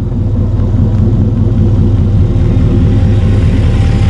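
Turbocharged Lincoln Town Car's V8 running loud and steady at low speed as the car drives up to and over the microphone.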